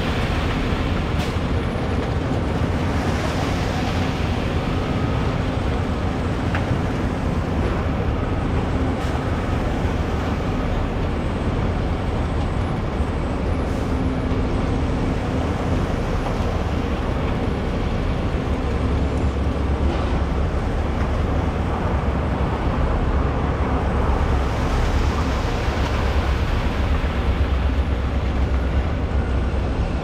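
Concrete mixer truck running steadily while its drum turns and discharges concrete down the chute, a continuous engine drone with the rush of the mix over it.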